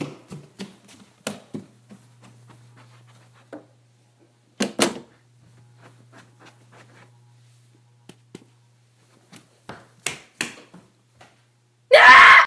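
Bare footsteps on a hardwood floor: quick knocks about three a second at first, later scattered and sparser, over a faint steady low hum. Near the end, a sudden loud burst of sound.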